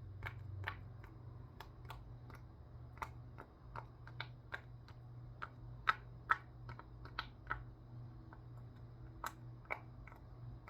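Bubbles of a small silicone pop-it fidget toy being pressed through one after another: a series of irregular, sharp little pops, the loudest pair about six seconds in.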